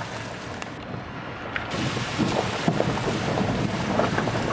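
A car's tyres rolling through shallow floodwater and washed-over gravel on a paved road, heard from inside the cabin as a steady splashing hiss. The hiss grows louder about two seconds in, with scattered small knocks from stones.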